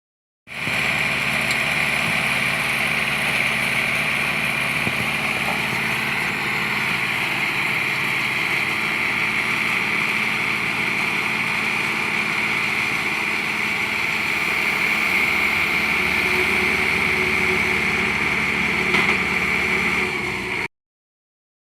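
Engine of construction machinery running steadily at a constant speed, with a steady high whine over it; it cuts in suddenly and cuts off suddenly.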